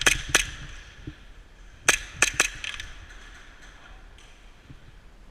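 Airsoft gunfire: sharp cracks, two at the start and three more in quick succession about two seconds in.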